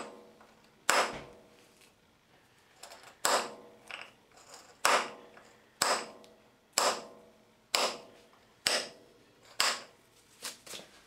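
Spring-loaded automatic centre punch firing against the edge of a stripped screw head in a metal plate: about nine sharp metallic snaps, roughly one a second, each ringing briefly, with fainter clicks between them. Each strike knocks the damaged screw anticlockwise to loosen it.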